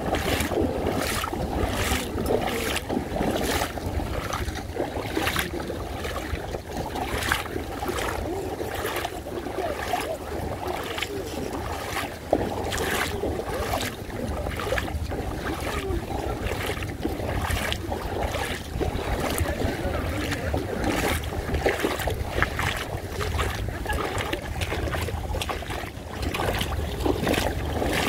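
Someone wading through shallow seawater: a steady run of sloshing splashes with each step, over wind buffeting the microphone.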